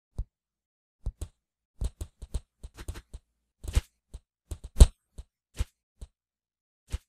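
Animated stick-figure fight sound effects: a quick, irregular run of about twenty thuds, hits and scuffles, the heaviest blow a little under five seconds in.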